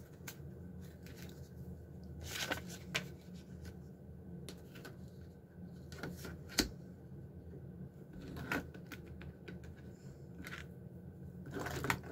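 Faint handling sounds of craft work at a cutting mat: a metal straight edge and a razor knife trimming tape-backed foil paper, heard as about seven separate short clicks and scrapes over a low steady hum.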